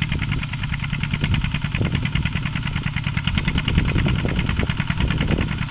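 Mini farm tractor engine running steadily with a fast, even beat while plowing a field, with a few bouts of heavier low rumbling partway through.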